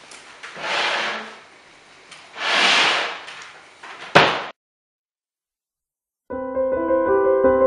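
Two short rushes of noise in a room and a sharp knock about four seconds in, then the sound cuts to silence for about two seconds. Piano music starts near the end.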